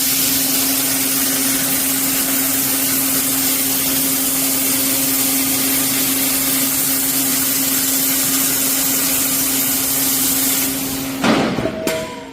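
Metal-cutting band saw sawing through a steel H-beam: a steady loud hiss over a constant machine hum. Near the end the cutting hiss stops, a loud clatter follows, and only a quieter hum remains.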